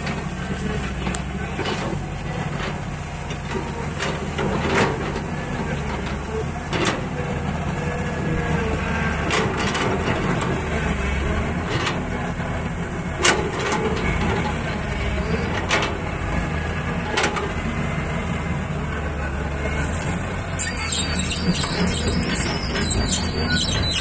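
Diesel engine of a crawler excavator running steadily as it digs soil, with sharp metallic clanks every few seconds.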